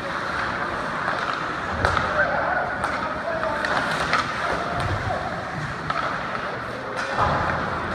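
Ice hockey play in a rink: skate blades scraping the ice and sharp clacks of sticks and puck, scattered irregularly over a steady background noise, with distant voices shouting.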